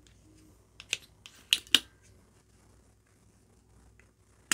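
Sharp clicks from a cheap 30-watt desoldering iron's spring-loaded suction plunger being cocked and released to suck molten solder from a capacitor's joints: a cluster of clicks between one and two seconds in, and another near the end.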